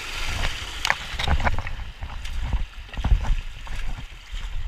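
River water rushing and splashing around a hiker wading up a small cascade, with irregular bumps and knocks.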